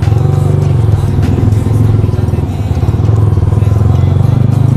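Sport motorcycle engine running steadily at low revs, close to the microphone, as the bike pulls away at walking speed.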